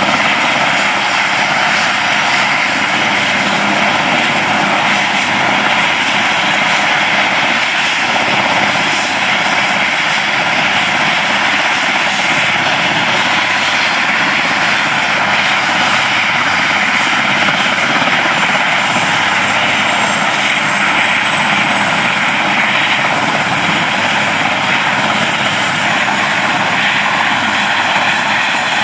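Puma-family twin-turbine military helicopter running on the ground: a steady, unchanging turbine whine and rotor noise.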